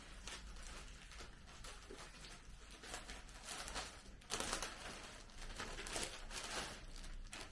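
Clear plastic garment bag crinkling and rustling in irregular bursts as a dress is pulled out of it, loudest a little over four seconds in.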